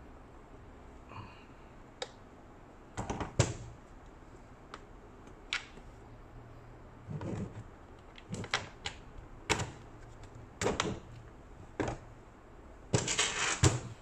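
Hard plastic clicks and knocks from the body parts of a Lehui Kriss Vector V2 gel blaster being handled and pressed together during reassembly, with a quick rattle of clicks near the end that is the loudest.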